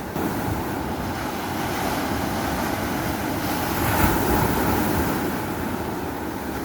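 Steady rushing noise of wind on the microphone and surf at the shore, swelling about four seconds in.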